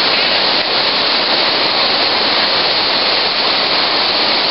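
Whitewater river rapids rushing over rocks: a loud, steady wash of water noise.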